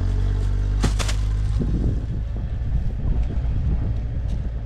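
Car engine running, a loud low steady rumble that turns rougher after about two seconds, with two sharp clicks about a second in.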